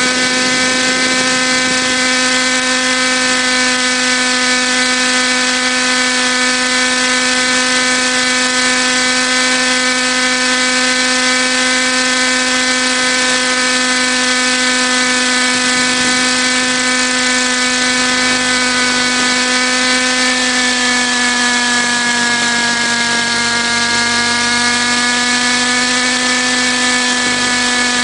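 Model helicopter's motor and rotor running in flight, a steady high whine over hiss. The pitch sags slightly about 21 seconds in and climbs back near the end.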